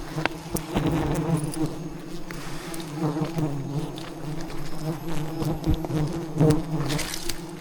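A swarm of wild bees buzzing in a steady low drone, with scattered short clicks and knocks over it.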